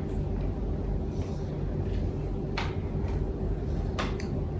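A few sharp clicks over a steady low hum, from a hair straightener's plates clapping shut as it is run through sections of hair: one click about halfway through and a quick pair near the end.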